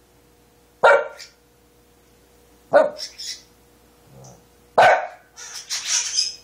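Small dog barking three times, about two seconds apart, each bark sharp and loud. A burst of higher-pitched chattering follows near the end.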